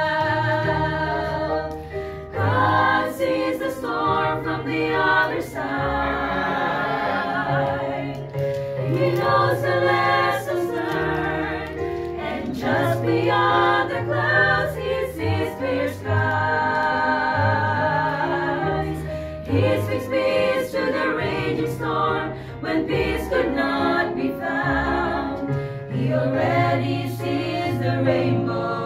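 A six-woman vocal ensemble singing the chorus of a Christian hymn in harmony, in phrases a few seconds long, over low held bass notes that change every second or two.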